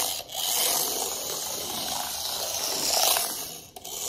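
Shell Motorsport Nissan Formula E toy RC car driving across a wooden floor, its small electric motor and gears whirring steadily, loudest as it passes close at the start and again about three seconds in.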